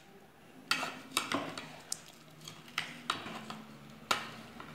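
A spoon clinking and scraping against a glass mixing bowl of puffed-rice bhel puri mixture as it is stirred: about seven sharp, irregular clicks.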